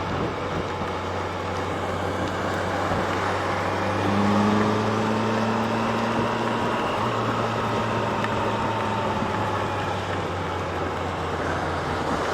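Yamaha FJR1300A inline-four motorcycle riding at road speed in heavy rain: a steady rush of wind and rain with the engine's low hum underneath. A louder, higher hum comes in about four seconds in and fades out again about five seconds later.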